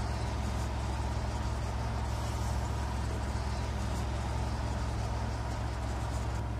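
Steady low mechanical hum with a faint hiss above it.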